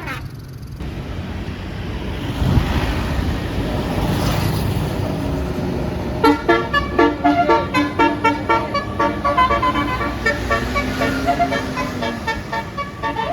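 Bus engine and road noise building for several seconds. Then, from about six seconds in, a Basuri 'telolet' multi-tone bus horn plays a fast melody of short, rapidly changing notes.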